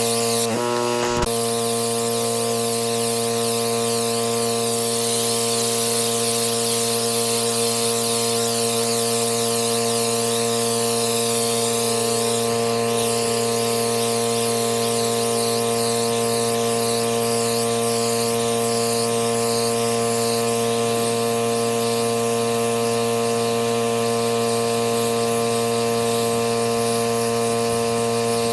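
Pressure washer running steadily, a constant machine drone with the hiss of the water jet over it; its pitch shifts briefly about a second in.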